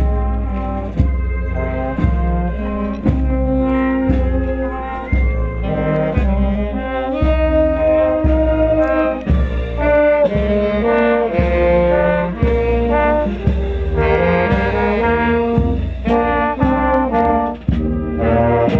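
Brass band music: trombones and trumpets playing a tune over a steady bass line, with a drum beat about once a second.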